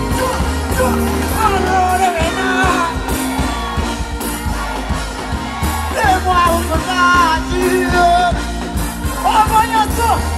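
Live dancehall music over a concert sound system: a vocalist singing into a microphone over a steady, heavy bass line.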